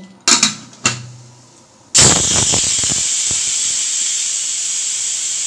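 Aluminium pressure cooker letting off steam at its whistle weight: a sudden, loud, steady hiss starts about two seconds in. It is the cooker's first whistle, the sign that it has come up to pressure. Two short knocks come before it.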